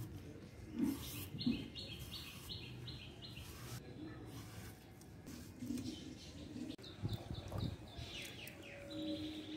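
Small birds chirping in quick runs of short, high repeated notes, with a few soft knocks as a vegetable is sliced on a bonti blade.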